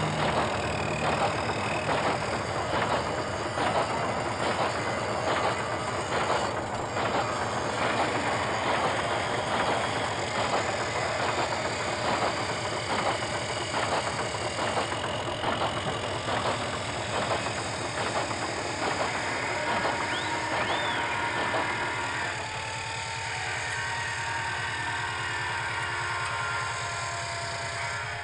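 Metal-fabrication workshop din: steady machinery noise with sharp knocks repeating about twice a second. About two-thirds of the way through it drops to a quieter hum with steady whining tones.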